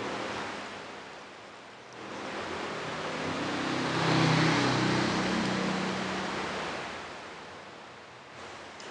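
A motor vehicle passing by: a low engine hum and rushing noise swell up and fade away over about six seconds.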